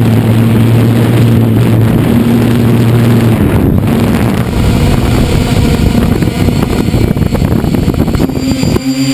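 Drone's motors and propellers running in flight, heard from the onboard camera: a steady low hum over a rushing noise. About three seconds in the hum fades into the rushing noise, and it comes back near the end.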